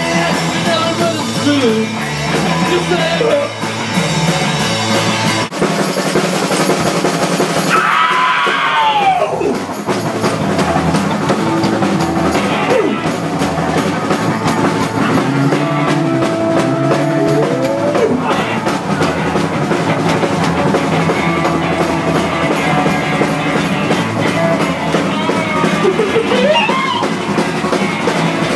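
A rock band playing live, with drum kit and electric guitars and bass, and a voice sliding in pitch now and then over the music.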